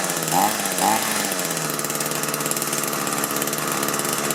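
Small two-stroke hedge trimmer engine blipping up in revs twice in the first second, then idling steadily. It is running with the fuel cap refitted, and that cap's tank vent is blocked, so the engine is being starved of fuel and will not throttle up.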